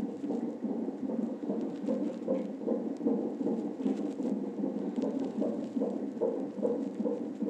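Fetal heartbeat played through a Corometrics fetal monitor's Doppler ultrasound speaker: an even run of whooshing pulses a little over two a second, matching the baby's heart rate of about 150 beats a minute.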